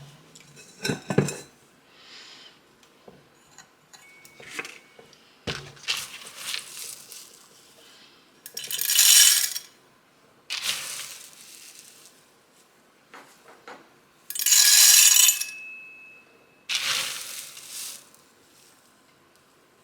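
Hard dried field corn kernels clattering as they are poured in several short pours, each about a second long, into the metal hopper of a KitchenAid grain-mill attachment, with small clinks and knocks of handling between. The mill is not yet running.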